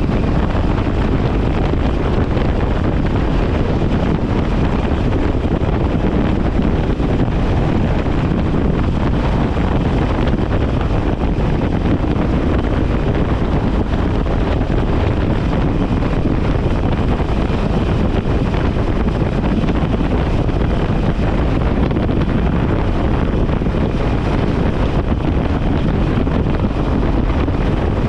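Steady wind rushing over a motorcycle rider's microphone at freeway speed, with the motorcycle's engine and road noise underneath.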